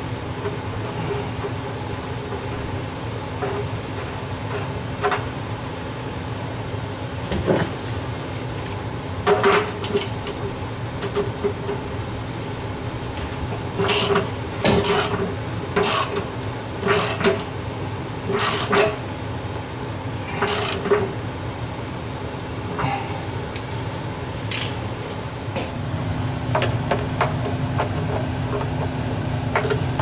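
Ratchet and socket tightening a new electric water heater element: short metallic clicking strokes, a few at first, then about one a second in the middle stretch. A steady low hum runs underneath.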